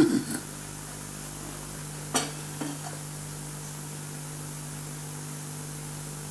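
Room tone: a steady hiss with a low, constant hum, broken by a brief faint knock about two seconds in.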